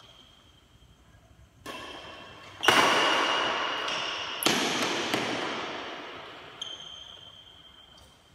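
Badminton rackets striking a shuttlecock during a rally: several sharp hits, the loudest about three seconds in, each trailing off in a long echo around a large metal-walled hall.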